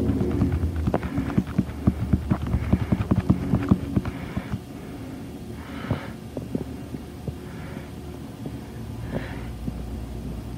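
Low steady hum from a television playing a VHS tape's silent warning screen, with a dense run of sharp clicks and taps over the first four seconds, then a few soft hissy puffs.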